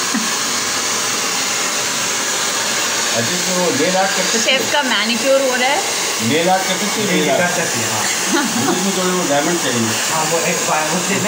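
Steady, even rushing of an electric blower running without a break, with people talking over it from about three seconds in.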